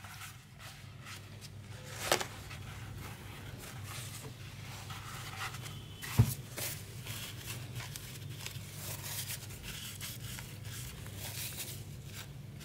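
Paper towel wiping over a laptop's circuit board and heatsink in a final clean after the old thermal paste has been removed: faint irregular rubbing and crinkling, with a few small knocks, the loudest about two and six seconds in, over a faint steady hum.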